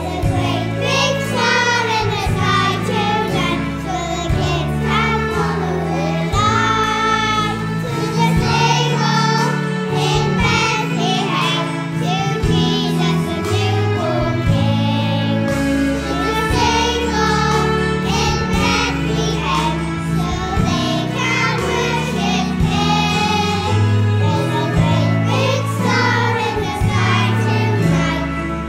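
A group of young children singing a song together with instrumental accompaniment, with a steady bass line underneath.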